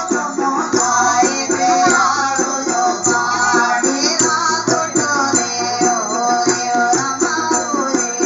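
Musadha folk singing from the Chamba region: a sung line over a plucked long-necked string instrument, with a shaken rattle keeping a quick, steady beat.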